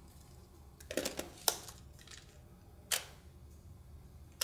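Lens being mounted on a DSLR body, with a few small clicks about a second in as the bayonet turns and locks, then single sharp camera clicks near the middle and at the end as the camera is handled and fired for a test shot.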